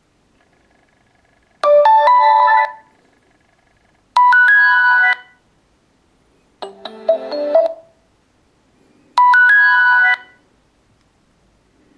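Nokia X7 stock ringtone playing: four short melodic phrases of about a second each with pauses between them, the third lower in pitch than the others.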